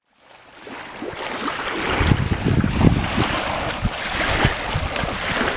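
Small waves washing onto a sandy shore, with wind buffeting the microphone in uneven gusts. The sound fades in over the first second.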